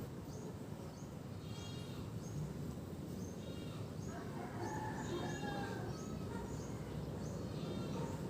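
Monsoon wind blowing steadily across a rooftop, with short bird chirps repeating through it and a longer, pitched animal call about four seconds in.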